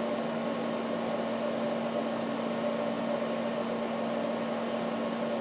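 Steady machine hum from a running room appliance: a constant low tone with a fainter higher one over an even hiss, unchanging throughout.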